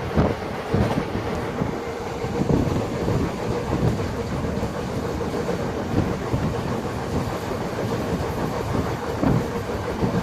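Moving train on its track: a steady rumble and hum, with irregular knocks from the wheels.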